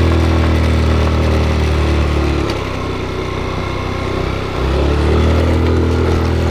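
Motorcycle engine running with a steady low drone; the revs drop about two and a half seconds in and pick up again about two seconds later.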